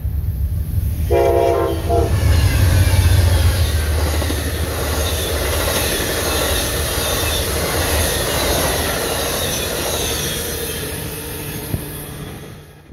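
Amtrak Empire Builder passenger train passing at speed. About a second in, the locomotive's horn sounds a chord for about a second. Then the rumble of the locomotive and the Superliner cars' wheels rolling on the rails carry on as the train rushes by, fading out near the end.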